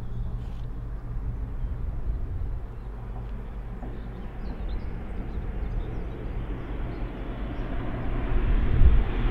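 Low rumble of a distant train approaching along an electrified main line, growing slowly louder towards the end.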